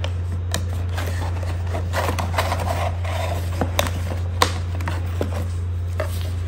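Cardboard packaging being handled: a folded box insert is pulled and worked loose, giving scattered light clicks and scraping rustles, with one sharper click about four and a half seconds in. A steady low hum runs underneath.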